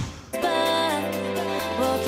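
Background music that starts abruptly about a third of a second in, cutting off the live crowd and water sound: a pitched melody over held bass notes that shift every second or so.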